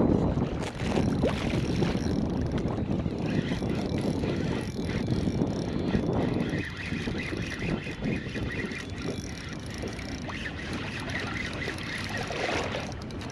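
Wind buffeting the microphone over water lapping and slapping against a kayak hull, a steady uneven rush.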